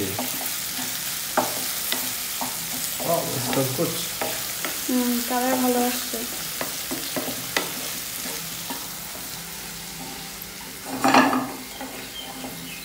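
Onion and garlic frying in hot oil in a pan, sizzling steadily while a spatula stirs and clicks against the pan, with one louder moment near the end.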